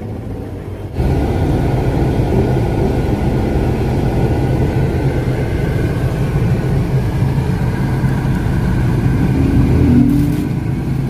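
Steady rumble of a car and passing road traffic, heard from inside the car; it jumps louder about a second in and then holds steady.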